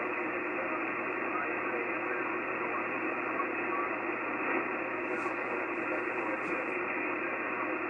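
Icom HF transceiver receiving the 80-meter band on 3.795 MHz: a steady rush of band static, dull and cut off at the top by the receiver's voice filter. Faint traces of a weak voice sound under the noise.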